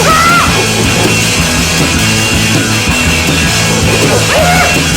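Loud rock music with distorted guitar and a drum kit playing an instrumental passage between sung lines.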